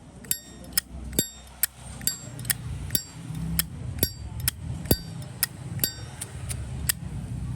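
Zippo lighter lid being flipped open and snapped shut repeatedly, about fifteen sharp metallic clicks at roughly two a second, some with a brief bright ring.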